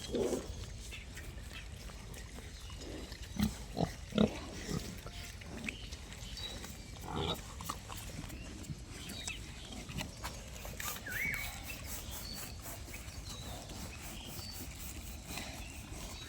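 Pigs grunting in short, scattered calls, with a cluster of louder grunts about three to four seconds in.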